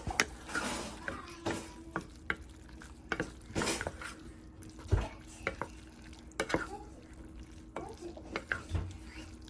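A utensil stirring pasta in a ceramic nonstick pot, with irregular clicks and knocks against the pot over a faint steady hum.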